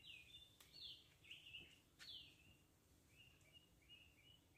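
Faint birdsong: a run of short chirps and quick falling whistled notes, with two faint sharp clicks in the first couple of seconds.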